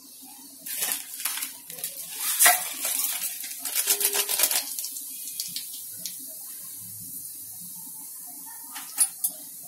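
Whole spices (bay leaf, cinnamon stick, cumin seeds) dropped into hot ghee in an aluminium pot, sizzling and crackling as they fry. The crackle is densest over the first half, settling to a steady sizzle with a few sharp pops near the end.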